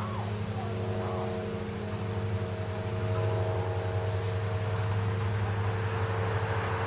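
Steady low hum of a motor vehicle engine, with tyre and road noise swelling from about two to three seconds in as traffic goes by.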